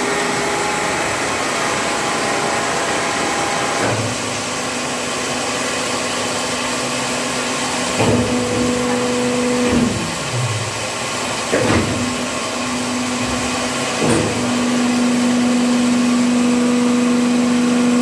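Plastic injection moulding machine running: a steady machine drone with a humming tone that comes in about four seconds in and grows stronger near the end. Three sharp clunks, as the mould and guard door are worked, stand out in the second half.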